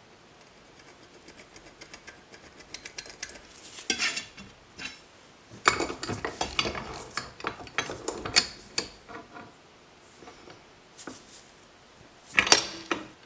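Small steel parts and hand tools clinking and rattling as they are handled on a workbench: scattered light clicks, a denser run of clatter in the middle and a louder metal clatter near the end.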